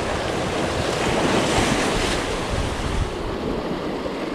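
Ocean surf washing and breaking over a rocky lava shoreline, with wind buffeting the microphone; the wash swells a little louder midway through.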